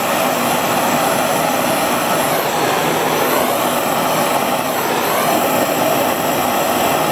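Gas torch flame hissing steadily, set to a small flame, while welding a thin aluminium refrigerator evaporator with aluminium filler.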